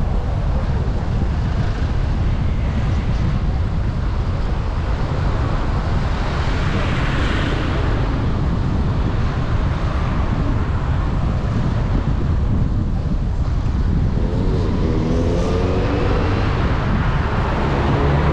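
Car driving slowly on wet city streets: a steady low rumble of engine and tyre noise. From about fifteen seconds in, a pitched engine tone rises and falls over it.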